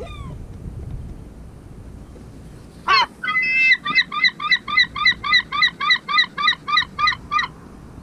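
Herring gull giving its long call: a loud call about three seconds in, then a rapid laughing series of about fifteen notes, some four a second, stopping shortly before the end. A faint single call comes right at the start.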